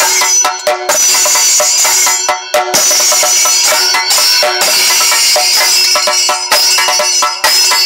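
Thayambaka ensemble of chenda drums played with sticks in a fast, dense roll. Ilathalam cymbals ring over the drums.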